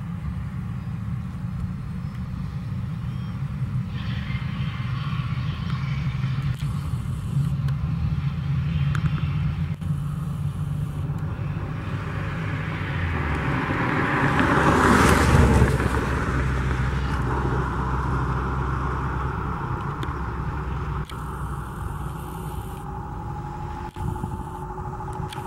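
Airbus A319 jet engines running at low thrust as the airliner taxis and turns, over a steady low rumble. A broad rush of jet noise swells to its loudest about halfway through, as the engines turn toward the microphone, then eases off. A faint rising whine comes in near the end.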